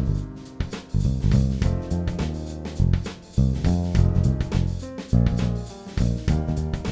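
Background music: plucked guitar and bass over a drum kit beat, jazzy in feel.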